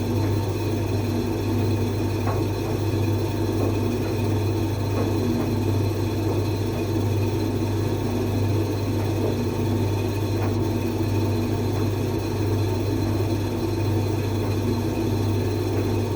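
Creda 37761 appliance running with a steady motor hum and a rough rumbling noise over it. This is the noise fault its owner is trying to fix.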